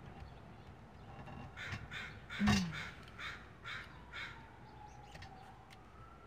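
Crows cawing: a run of about eight short caws over a few seconds, the loudest about two and a half seconds in.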